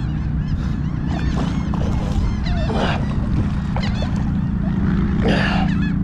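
A hooked redfish thrashing at the surface of shallow water, with two louder splashes about three and five seconds in. Birds call throughout, over a steady rumble of wind on the microphone.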